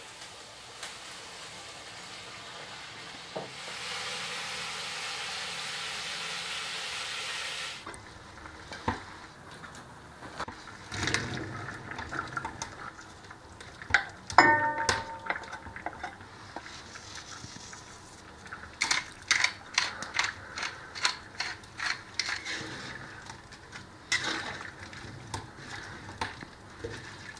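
Liquid from soaked porcini poured into the pot for about four seconds. Then scattered clinks and a single ringing metal clank, then a wooden spatula knocking and scraping against the pot in quick runs as the stew is stirred.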